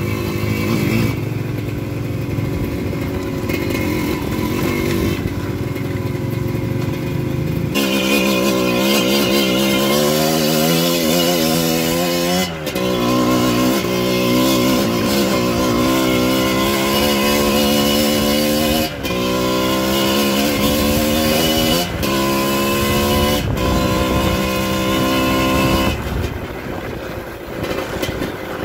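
Dirt bike engine pulling hard, its pitch climbing and then dropping at each gear change, with brief dips in power at the shifts several times.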